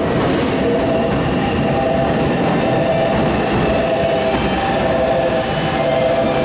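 Electric commuter train running past, a steady loud rumble with a high steady tone that drops out and comes back every second or so.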